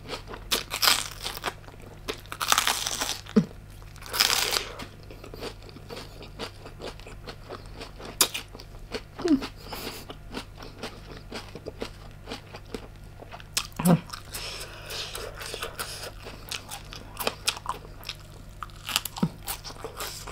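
Close-miked eating: several loud crunching bites in the first few seconds, then quieter chewing with scattered wet clicks, and another crunchy stretch about two-thirds of the way through.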